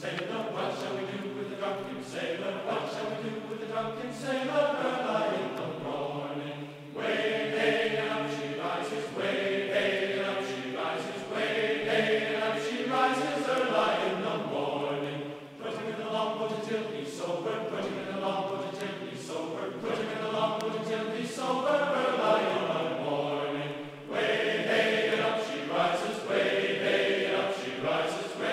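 Background music: a choir of voices singing a sea shanty in phrases, with short breaks between them.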